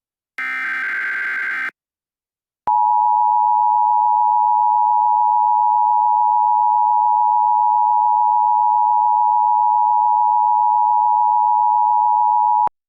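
Emergency Alert System tones: a short raspy burst of SAME digital header data, then, after about a second of silence, the EAS attention signal. That signal is a loud, steady two-tone beep held for about ten seconds that cuts off sharply.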